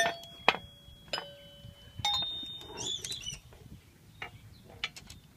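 Outdoor playground metal xylophone struck with its tethered mallet: four strikes in the first two seconds, each bar ringing on briefly at its own pitch. A short high squeal follows about three seconds in, then a few lighter taps near the end.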